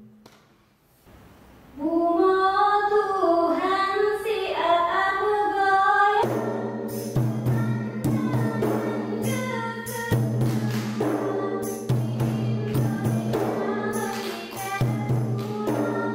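Acehnese Saman dance song. After about two seconds of near silence, voices sing a wavering line unaccompanied. About six seconds in, a steady low backing tone comes in with quick rhythmic percussive hits under the singing.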